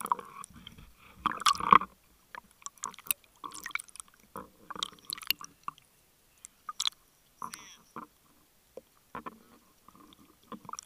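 Water sloshing and splashing against an underwater camera housing held at the surface, in irregular bursts with short quiet gaps between.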